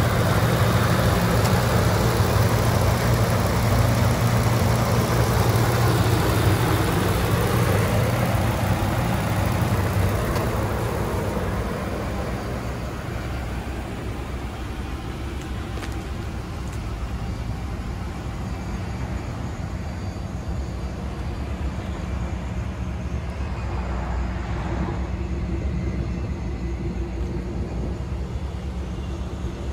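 Ford F-550 Super Duty truck engine idling with a steady low hum. It is loudest over the first several seconds and drops to a softer hum by about twelve seconds in. A faint whoosh swells and fades around twenty-four seconds in.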